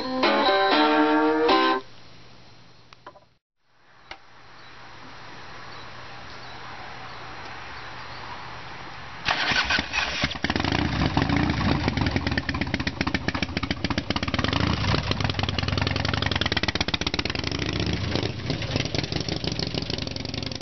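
A four-string cigar box guitar through a small amp plays the last notes of a blues tune and stops about two seconds in. About nine seconds in, a Harley-Davidson V-twin motorcycle engine starts and runs, its revs rising and falling as it rides off.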